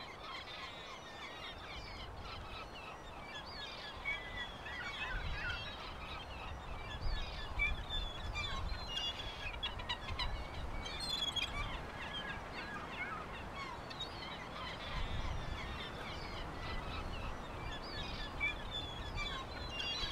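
Many small birds chirping and calling in quick, overlapping short notes over a low rumble.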